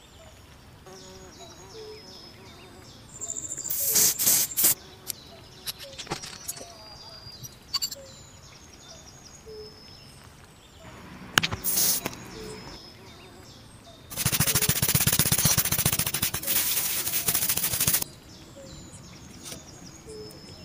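Small metal parts of a rusty derringer being handled and taken apart by hand: sharp clicks about four seconds in and again near the middle, then about four seconds of loud, rapid scraping and rattling.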